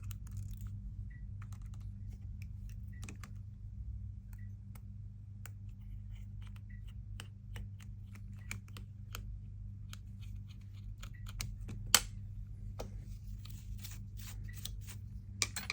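Small hand tools and phone parts clicking and tapping during iPhone 13 repair work, irregular sharp clicks with one louder click about twelve seconds in, over a steady low hum.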